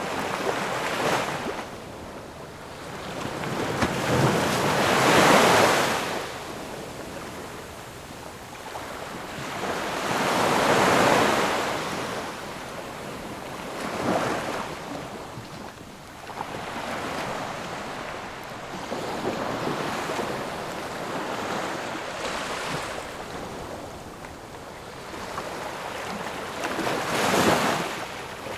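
Ocean waves breaking and washing in, rising and falling in slow, uneven swells. The loudest crashes come about five seconds in and again near the end.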